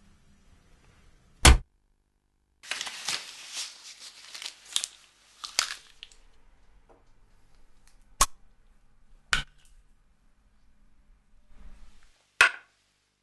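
A sharp click, then a few seconds of rustling with small clicks, then three more single clicks spread apart: small objects handled on a table.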